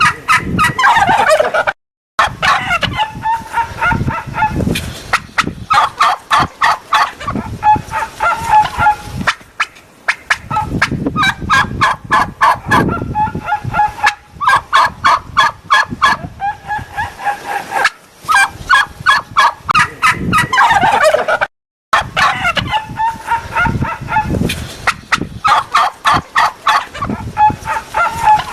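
Bird calls in long bouts of fast, rattling pulses with some falling notes. The sound cuts out completely for a moment about two seconds in and again near twenty-two seconds, where the same recording seems to start over.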